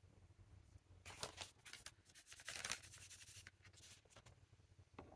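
Faint scratchy rustling, a cluster of short rubbing noises between about one and three and a half seconds in, from hands handling the brush and materials.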